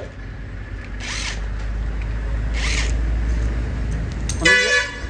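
Low steady rumble with two short hissing bursts, then a vehicle horn sounds once, briefly, near the end.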